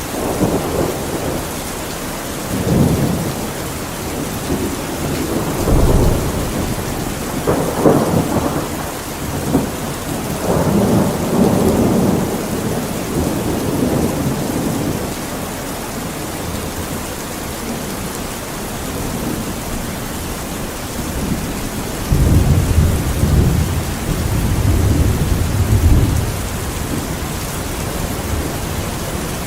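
Steady rain with rolling thunder rumbling in waves over it: a long stretch of rumbles in the first part, then a quieter lull, then another swell of thunder about three-quarters of the way through.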